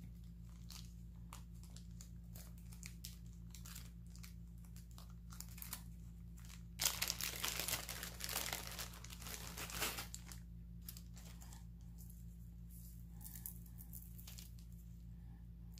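Packaging being handled: light crinkling and rustling, with a louder stretch of crinkling and tearing about seven seconds in that lasts roughly three seconds.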